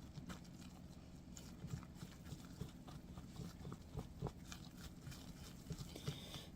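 Faint, irregular soft knocks and squishes of biscuit dough of flour, shortening and buttermilk being mixed by hand in a bowl.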